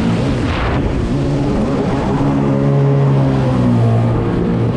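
Jet ski engine running at high speed across open water, its note climbing a little about a second in and then holding steady, over the rush of water and spray against the hull.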